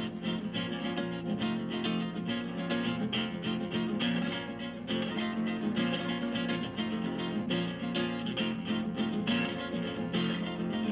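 Flamenco-style acoustic guitar music, strummed chords coming several a second over held notes.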